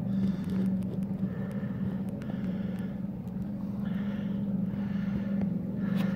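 An engine running with a steady, even-pitched low hum.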